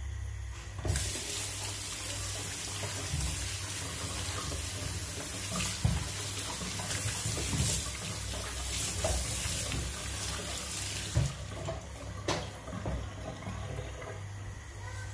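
Kitchen tap running onto ripe plantains in a stainless steel sink as they are rinsed by hand, with splashing and a few knocks. The water comes on about a second in and goes off at about eleven seconds, leaving quieter handling sounds.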